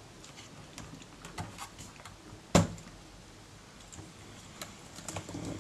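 Light clicks and scrapes of circuit boards being handled and unhooked inside an opened Tascam mixing console, with one sharp click about two and a half seconds in.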